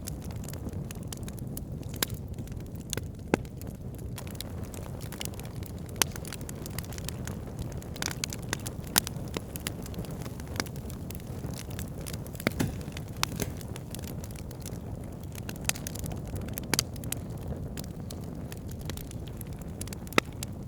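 Campfire burning wood: a steady low rumble of flames with frequent sharp, irregular crackles and pops.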